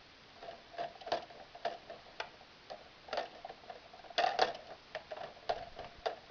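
Plastic clicking and ticking from a Lego gumball machine's mechanism, irregular clicks about two a second. It sounds when the gumball drawer is pulled out without a coin, a signal that a coin is needed.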